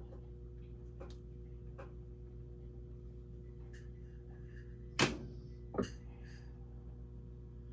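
Whirlpool top-loading washing machine humming steadily at the start of its cycle, with two sharp clicks close together about five seconds in.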